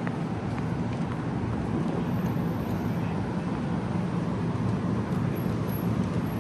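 A vehicle's steady low rumble, swelling slightly at the start and then holding even.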